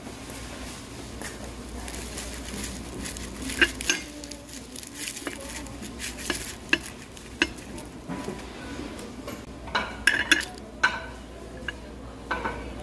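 Steel knife and fork cutting through the crisp breadcrumb crust of a deep-fried rice ball on a ceramic plate: a crackle of crust with sharp clinks of cutlery on the plate. Near the end a metal spoon clinks against a small ceramic sauce dish.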